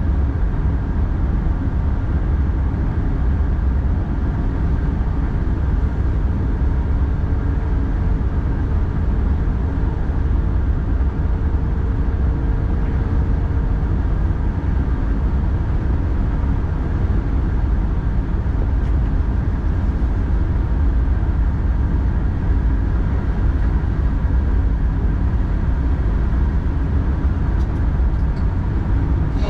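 SJ X40 (Alstom Coradia Duplex) double-deck electric multiple unit running along the line, a steady deep rumble heard from the driver's cab. A faint steady tone joins it for several seconds partway through.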